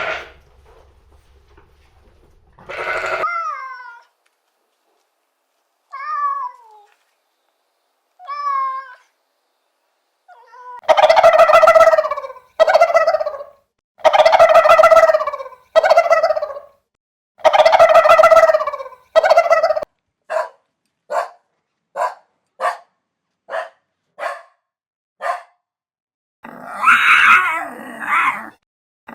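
Domestic cat meowing over and over: a few soft falling meows, then a run of long, loud meows, then shorter, quieter ones; a harsher, noisier call comes near the end.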